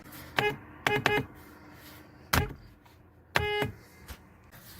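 Weak, thin car horns tooting: a short toot, then two quick ones about a second in, another short one a little after two seconds, and a slightly longer honk about three and a half seconds in.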